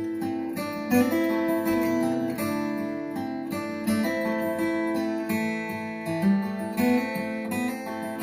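Acoustic guitar intro of a recorded folk song, plucked notes ringing one after another with no vocals yet, played back over a hi-fi system with Polk Legend L200 speakers.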